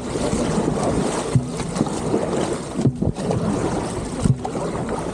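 Dragon boat paddling at an easy warm-up pace: a short sharp stroke sound with a brief low tone about every second and a half, over steady wind noise on the microphone.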